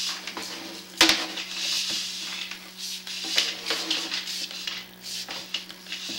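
Irregular clattering and sharp knocks over a steady low hum, the loudest knocks about a second in and again about three and a half seconds in.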